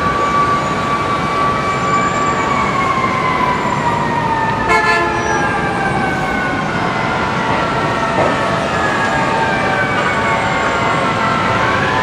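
Fire truck siren wailing in slow, long glides, falling gradually and starting to rise again near the end, over steady city traffic noise. A short horn blast sounds about halfway through.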